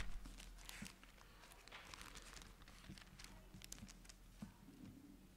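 Faint rustling and crinkling of thin Bible pages being leafed through, with soft scattered clicks.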